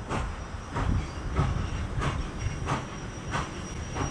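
Nickel Plate Road 765, a 2-8-4 Berkshire steam locomotive, working steam: a steady rhythm of exhaust chuffs about three every two seconds over the low rumble of the moving train.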